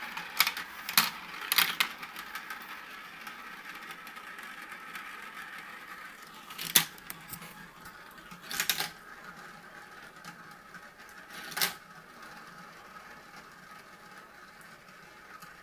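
Marbles rolling down a marble run, a steady rattle with sharp clacks as they drop onto and knock against the track pieces. Several clacks come close together early, then single ones about seven, nine and eleven seconds in, the loudest about seven seconds in. The rolling dies away near the end.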